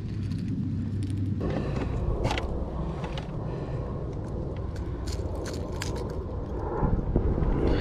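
Fishing pliers clicking and scraping on the treble hooks and hard plastic body of a crankbait lure while it is worked out of a fish's mouth, in many sharp irregular ticks starting about a second and a half in. A steady low rumble runs underneath.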